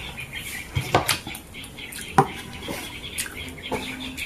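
Mukbang eating sounds: a metal spoon clinking on a plastic plate while fried fish is picked apart, with a few sharp clicks about a second apart.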